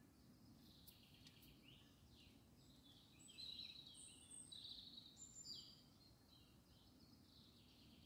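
Faint birdsong: quick chirps and short falling whistles from small birds, busiest and loudest in the middle stretch, over a low steady outdoor rumble.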